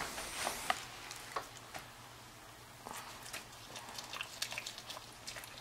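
A small dog biting and chewing a strip of ham skin held in fingers: faint, irregular wet clicks and smacks, coming thicker from about three seconds in.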